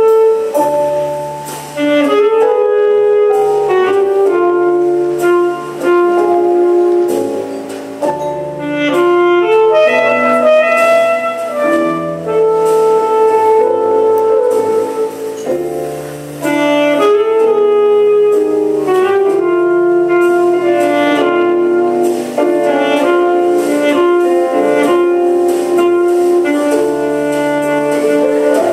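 A saxophone plays a slow jazz melody of held and moving notes over an accompaniment with piano and a low bass line.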